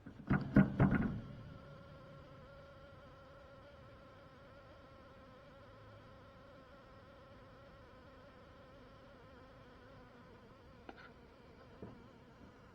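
A few quick knocks at the start, then a steady buzzing hum of many insects, heard but not seen, carrying on through the rest.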